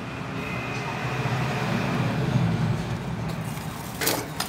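Road traffic rumbling steadily, swelling a little past halfway as a vehicle passes and then easing, with a faint high steady whine in the first half. Near the end there are two sharp clicks as tools are put down.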